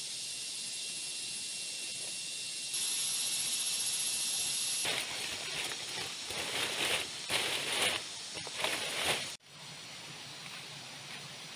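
Steady outdoor hiss with faint high steady tones. About five seconds in come irregular rustling and crackling noises, and these cut off abruptly near the end.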